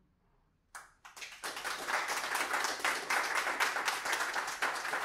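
Audience applauding: a first clap about three-quarters of a second in, then quickly building into steady clapping from many hands.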